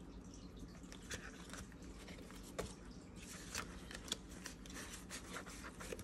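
Paper banknotes and clear plastic binder pockets rustling and crinkling as bills are handled, with a scattering of small sharp clicks.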